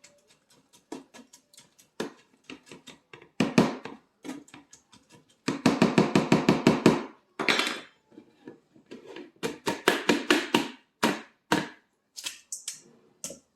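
A large spoon scraping and tapping against a strainer in quick runs of strokes, pressing canary melon seeds and pulp to squeeze out the juice. The longest, loudest run comes about six seconds in.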